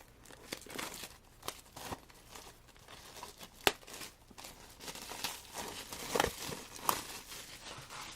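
Plastic shrink wrap on a CD album crinkling and tearing as the album is opened, with scattered clicks and one sharp snap about three and a half seconds in.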